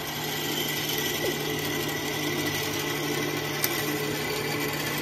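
A metalworking machine tool running steadily: a constant motor hum with a fast, even rattle, and one short click about three and a half seconds in.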